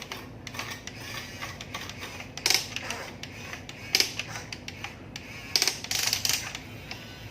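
Small electric motors and plastic gearboxes of a radio-controlled construction model whirring, with sharp clattering knocks about two and a half seconds in, at four seconds, and in a cluster near the end.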